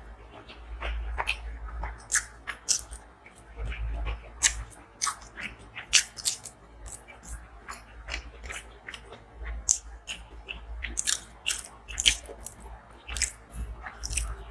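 Close-miked eating: chewing with frequent sharp, irregular crunches, several a second.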